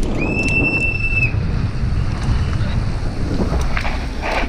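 Wind buffeting the camera microphone and tyres rumbling on asphalt as a downhill mountain bike descends fast, with a high steady squeal lasting about a second near the start.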